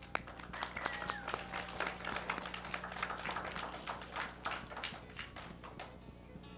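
A small audience of children clapping: irregular, unsynchronised claps that thin out and die away near the end.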